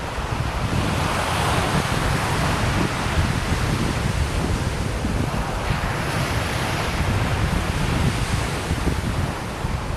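Ocean surf washing onto a beach, with a swell of breaking-wave noise early on, while wind buffets the microphone with a low rumble.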